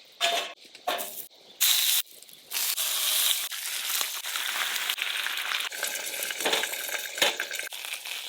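A few short handling noises, then from about two and a half seconds in, steady sizzling of food frying in a pan.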